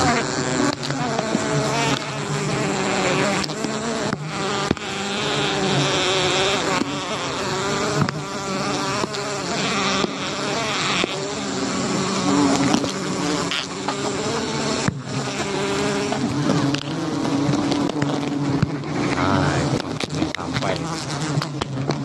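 A large colony of giant honey bees buzzing loudly, many wavering tones overlapping without a break, with bees flying close past the microphone around their open comb.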